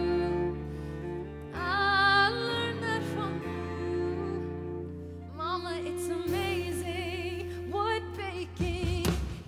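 Musical-theatre song: a solo voice sings a slow melody with vibrato over held orchestral string and bass notes.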